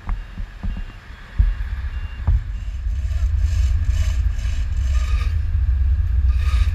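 A few sharp knocks in the first couple of seconds, then a steady low rumble on a ship's deck that continues to the end. Faint short beeps repeat in the first half.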